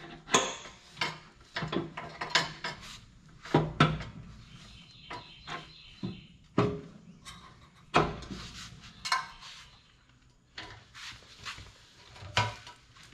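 Irregular knocks, clicks and clatter of a WrightVac mower-deck blower being fitted by hand: the housing and its mounting pin knocking against the deck, then the ribbed hose being handled.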